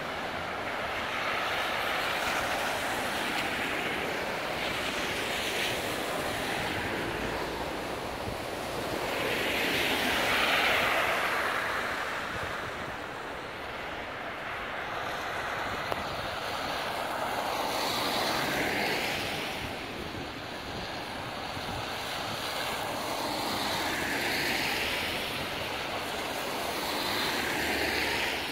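Steady rain on a street, with vehicles passing on the wet road, their tyres hissing in slow swells every several seconds. The largest swell comes about ten seconds in.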